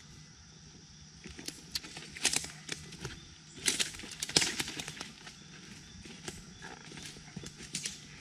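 Footsteps crunching over cut brush, twigs and leaf litter on a freshly cleared woodland path: an irregular series of snaps and crunches.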